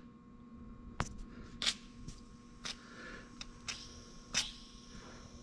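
Aerosol can of PB Blaster penetrant spraying in short hissing bursts, about one a second, onto a freshly welded, still-hot nut on a broken exhaust bolt in an aluminium cylinder head, with a sharp click about a second in and faint crackling between the bursts. The spray is being used to cool the weld so that the bolt can be pulled out.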